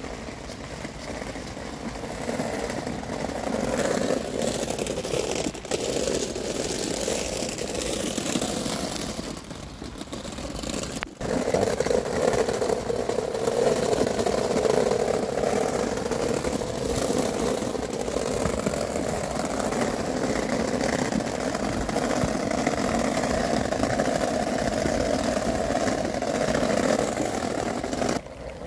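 Small wheels of a trolley school bag rolling over a wet asphalt path, a steady rumble. It breaks off for a moment about eleven seconds in, then carries on.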